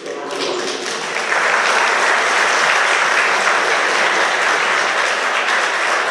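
Audience applauding, building up over the first second or so, holding steady, then easing slightly near the end.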